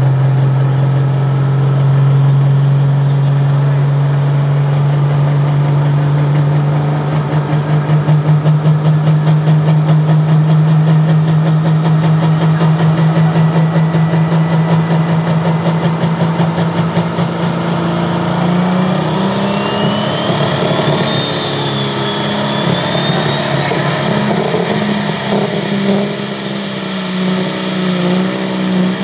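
John Deere pro stock pulling tractor's turbocharged diesel engine running hard at the start line. It holds a steady note that throbs rhythmically in the middle, then for the last ten seconds a whistle climbs steadily in pitch as the turbocharger spools up and the engine note rises, building boost before the launch.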